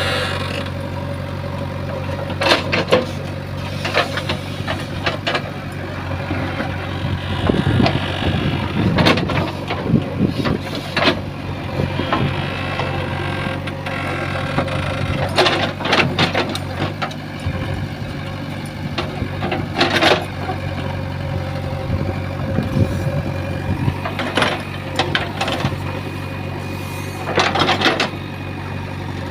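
JCB 3DX backhoe loader's diesel engine running steadily as the machine works, with repeated sharp metallic clanks and knocks scattered throughout.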